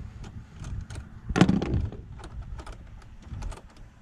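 Scattered clicks and knocks of engine air-intake parts being unclipped and handled by hand, with one louder knock about a second and a half in.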